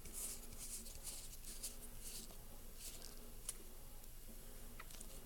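Faint handling of Magic: The Gathering trading cards: soft scattered rustles as cards are slid and sorted, with a light click about three and a half seconds in.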